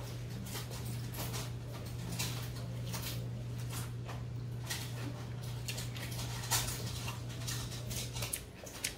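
Scattered light clicks and clinks of eating at a table, with spoons and plates knocking, over a steady low electrical hum that cuts out near the end.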